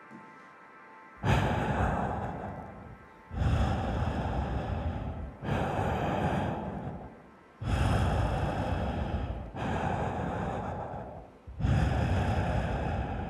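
Six loud rushes of breath-like noise, like amplified exhalations, about two seconds apart. Each starts suddenly and fades away. Faint held music tones fade out just before the first rush.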